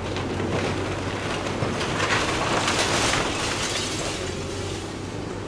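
Kobelco excavator's diesel engine running steadily with a constant low hum while its demolition grapple rips into a masonry wall, with debris crumbling and clattering down, loudest about two to three seconds in.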